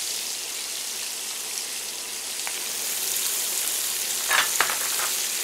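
Sliced onions sizzling in hot mustard oil in a frying pan, a steady hiss that grows a little louder about three seconds in. A short clatter of a few knocks comes about four seconds in.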